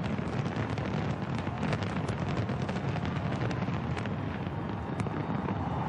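Aerial fireworks display: many overlapping shell bursts running together into a continuous deep rumble, with frequent sharp crackles and pops scattered through it.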